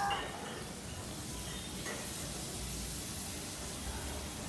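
The tail of a cat's meow cuts off right at the start, then only steady background hiss with a low rumble and no distinct sound.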